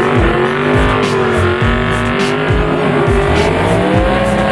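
A drag-race car running at the track: a drawn-out droning tone that slowly wavers in pitch. Music with a steady drum beat plays along with it.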